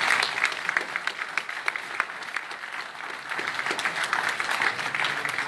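Audience applauding, the clapping thinning a little around the middle and picking up again after about three seconds.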